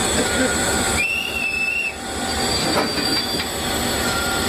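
Railway wagon creeping along the track, its steel wheels giving a short high squeal about a second in and a fainter high squeal later, over steady train noise.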